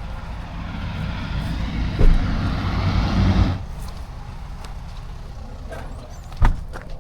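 Road vehicle running close by, a low rumble with rising tyre and wind noise that stops abruptly about three and a half seconds in. There is a thump about two seconds in and another sharp knock near the end.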